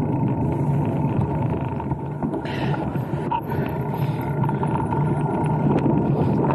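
Mountain bike rolling along a dirt trail at speed: a steady rumble of tyres and riding noise, with a brief brighter rattle about two and a half seconds in.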